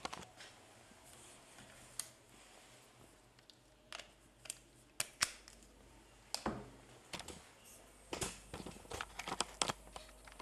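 Quiet handling noise: scattered light clicks, knocks and short rustles as objects and cables are moved about by hand, with a cluster of quick clicks near the end.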